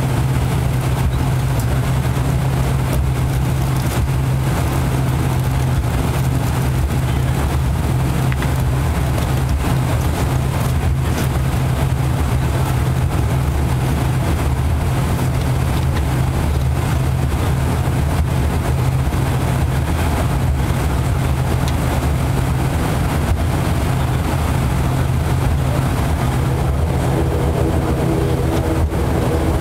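Cabin noise of an ATR 72-500 taxiing after landing: its twin Pratt & Whitney Canada PW127 turboprops and propellers running with a loud, steady low hum.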